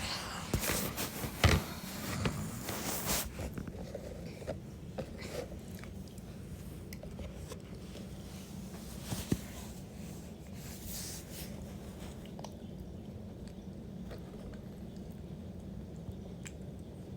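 Intermittent sharp clicks over a steady low hum, with a busy patch of clicking and rustling in the first few seconds, then only occasional single clicks.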